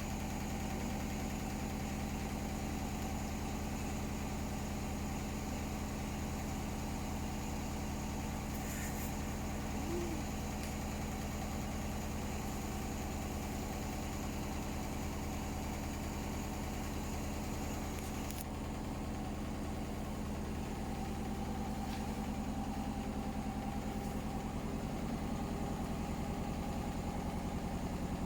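Hotpoint Smart Tech washing machine on its spin cycle, motor and drum running steadily with a fast, even vibration, a sign of a badly unbalanced load. It gets slightly louder near the end.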